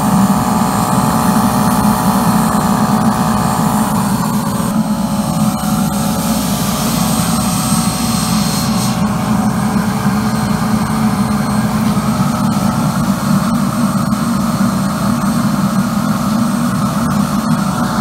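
Diesel-fired burner of a small mono-tube steam boiler running steadily, turned down low for a first test, with a jet of steam hissing from its brass outlet nozzle.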